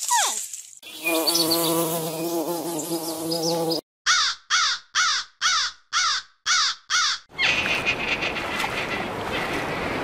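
A crow cawing seven times in an even series, about two caws a second. Before it comes a steady pitched animal call lasting about three seconds, and after it a steady hiss like sea surf.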